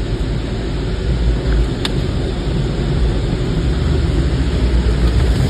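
Storm wind buffeting the microphone, a loud, steady rumbling noise, with a single sharp click about two seconds in.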